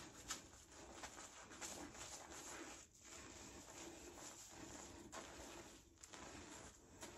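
Faint soft rubbing and squishing of fingertips scrubbing purple shampoo lather into hair.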